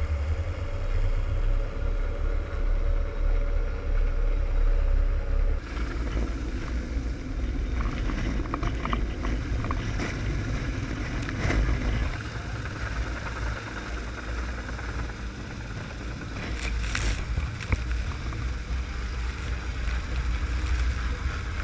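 Heavy wind rumble on the microphone over a running boat engine with a faint steady tone. About six seconds in it changes to the rotor wash of a helicopter hovering close overhead, buffeting the microphone in gusts.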